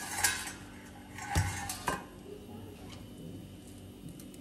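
Kitchen pots, dishes and utensils clattering: a few sharp knocks with a short metallic ring in the first two seconds, the strongest about one and a half seconds in.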